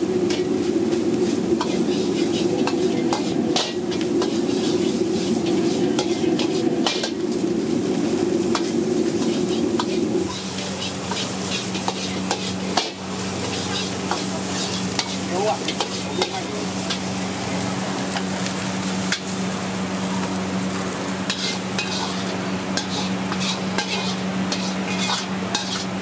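Rice for Yang Zhou fried rice stir-frying in a hot wok: steady sizzling, with the metal wok ladle repeatedly scraping and clinking against the wok. A steady low hum runs underneath and drops to a lower tone about ten seconds in.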